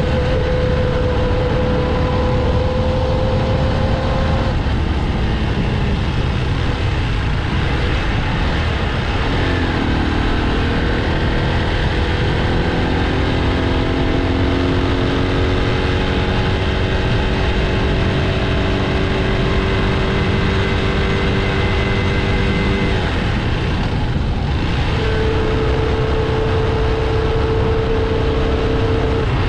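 Motorcycle engine running at road speed under heavy wind rush on the microphone. Its engine note dips about nine seconds in, climbs slowly over the next dozen seconds, then settles at a new steady pitch near the end.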